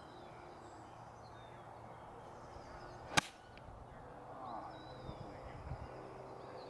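A golf iron striking the ball in a full swing: one sharp crack about three seconds in.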